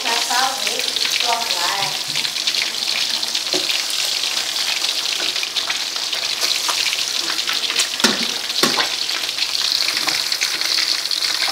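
Fish steaks deep-frying in hot oil in a wok: a steady sizzle and crackle of many small pops. There are two louder knocks about eight seconds in.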